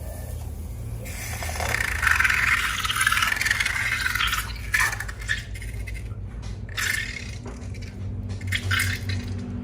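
Slime or liquid being poured and scraped in a container: a pouring, scraping hiss for a few seconds, then several short sharp scrapes and squelches.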